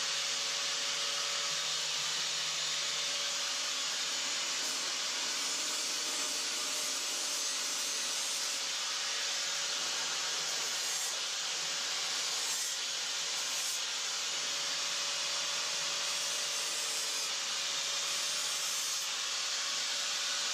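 Electric motor of a workbench power tool running at a constant speed: a continuous hiss with a steady hum that does not change in pitch or level.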